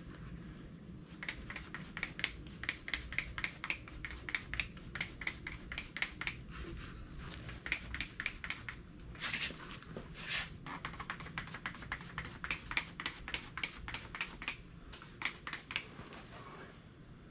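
Hand spray bottle squirted rapidly over and over, about four squirts a second, with two longer sprays about halfway through: lubricant being sprayed onto a tractor tire's bead before mounting it on the rim.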